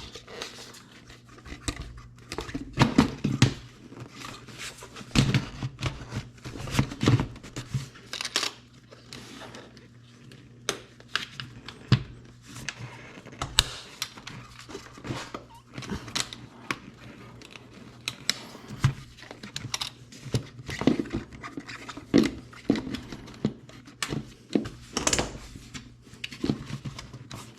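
Irregular clicks, knocks and scraping as a compact tractor's air filter housing cover and its clasps are worked and pressed into place by hand, the new filter catching and not yet seating.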